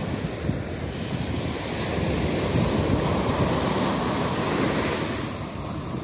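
Small waves breaking at the shoreline and washing up the sand as foam. The wash swells about two seconds in and fades near the end, over a low rumble of wind on the microphone.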